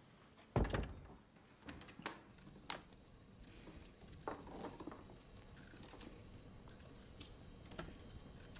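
A heavy thump less than a second in, then small knives scraping and clicking as vegetables are peeled and cut over a wooden table.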